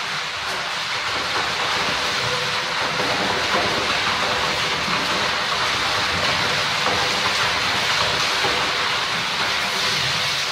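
Water splashing and sloshing without a break as a gorilla churns and spins in a plastic paddling pool, a steady wash of spray.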